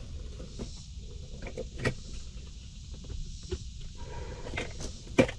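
Equipment being handled: scattered light clicks and knocks, with one sharp knock near the end, over a steady low rumble.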